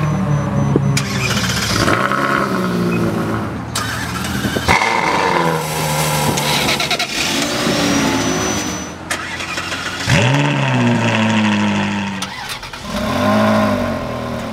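Three Ferrari V8 engines in turn, each revved while parked: a Ferrari California, then an F355 Spider from about five seconds in, then a 360 Challenge Stradale from about ten seconds in. The last one's revs climb and fall back twice.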